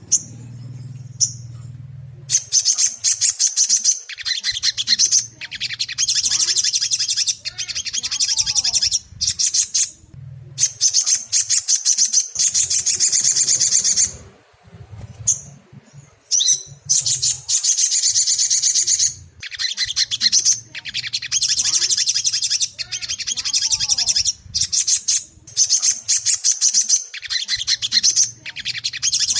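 Ruby-cheeked sunbird (sogok ontong) singing: rapid, high-pitched chattering phrases a few seconds long, repeated after short pauses, played to prompt a young bird to sing. A faint low hum runs underneath.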